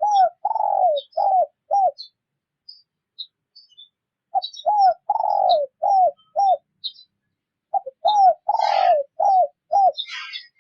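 Spotted dove cooing its territorial song in three phrases of about five coos each, the second coo of each phrase longer and falling in pitch. Thin high chirps of small birds sound throughout, and there is a brief rustle near the end.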